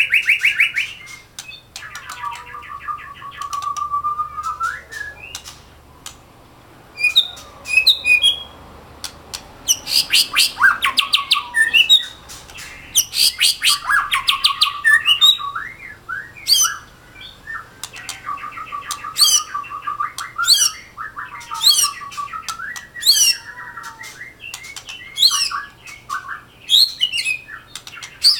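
Caged male white-rumped shama singing: a long series of varied phrases of clear whistles, quick sweeping notes and fast rattling trills, with short pauses between them. The owner judges the bird not yet at his best, just after a bath.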